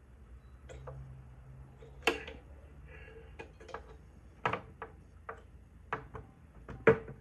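Hard plastic clicks and knocks, about seven at irregular intervals, as an electric grill plate's detachable temperature-control probe is pushed and fitted into the grill's socket. The loudest knock comes near the end.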